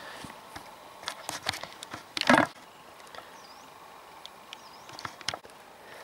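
Water splashing and dripping as a freshly gutted grayling is rinsed in river shallows: a run of small splashes about a second in, one louder splash a little after two seconds, and more drips near the end. A small bird chirps faintly twice.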